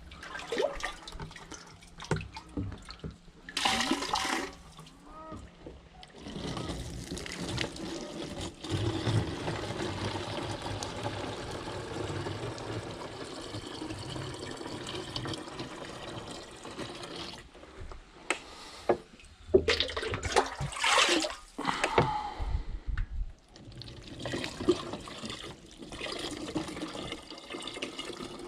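Spring water running and splashing steadily, with louder bursts of splashing a few seconds in and again about two-thirds of the way through.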